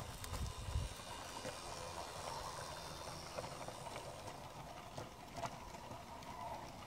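Model goods wagons on a 32 mm gauge garden railway rolling slowly past, making faint irregular clicks of small metal wheels over rail joints, with a low rumble in the first second.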